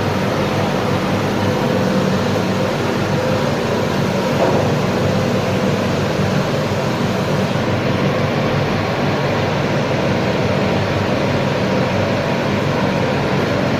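Welding on an aluminium tanker: a steady, unbroken hiss and buzz with a low electrical hum underneath, holding an even level throughout.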